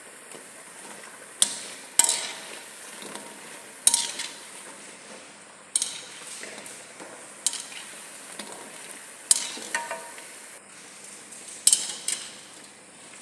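Oil sizzling steadily as geimat dough balls fry, with a utensil knocking and clinking against the pot roughly every two seconds as they are stirred and turned.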